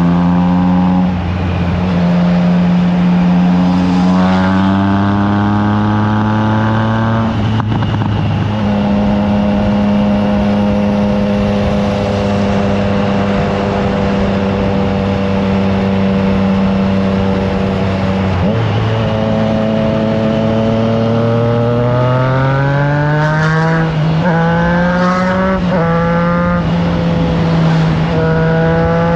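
Triumph Trident 660's inline three-cylinder engine through a FireTong aftermarket exhaust, ridden hard: the engine note climbs and drops in steps as it shifts up through the gears, holds a steady cruise for about ten seconds, then climbs again with several quick upshifts near the end.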